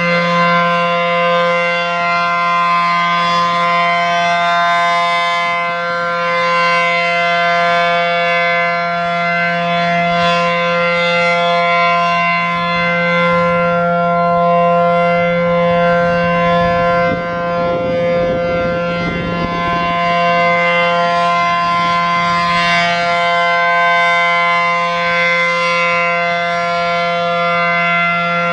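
A.C.A. P-10 rotating outdoor warning siren sounding its full-alert signal, a single steady pitch held without rising or falling. Its loudness swells and dips slightly as the rotating horn sweeps past.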